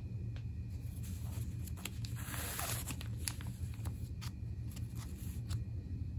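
Cellophane-wrapped plastic food tray handled and turned over: crinkling and a few sharp clicks of the plastic, loudest about two to three seconds in, over a steady low hum.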